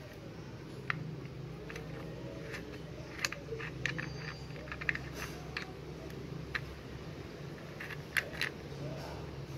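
Irregular plastic clicks and taps from a suction-cup car phone holder being handled and worked on, over a steady low hum.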